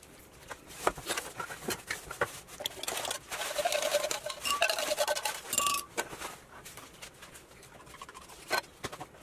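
Thick cream squeezed and poured from a small carton into a glass blender jar: wet plops, scraping and clicks against the carton and glass, busiest in the middle few seconds.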